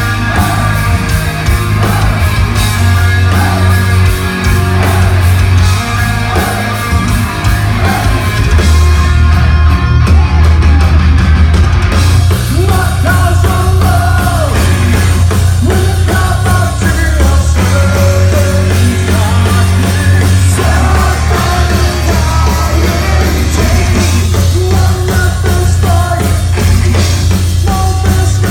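Heavy metal band playing live at full volume: distorted electric guitars, bass and a driving drum kit, with vocals over them.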